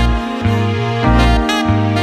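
Instrumental background music: a held melody over a bass line that changes note about twice a second.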